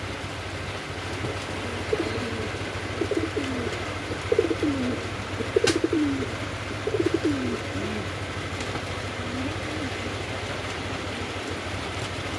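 Domestic pigeons cooing in repeated rising-and-falling phrases from about two seconds in until about ten, over a steady low hum. There is a single sharp click about halfway through.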